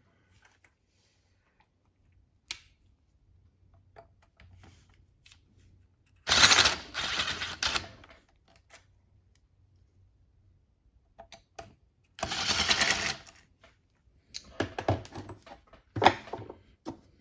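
A tool backing out the Allen-head screws from the Honda ATC90 engine's case cover. There are two loud runs of one to two seconds each, about six seconds apart, then a string of shorter clicks and rattles near the end as the screws are worked loose and handled.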